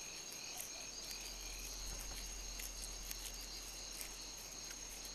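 Faint chorus of night insects trilling steadily at several high pitches, with a few light ticks over a low hum.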